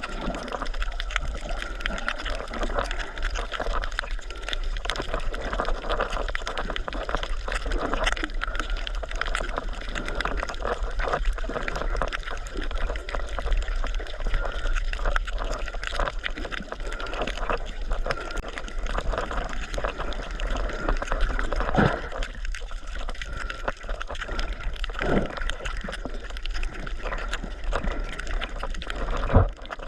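Water sloshing and gurgling continuously, with crackling and a few sharper knocks or splashes.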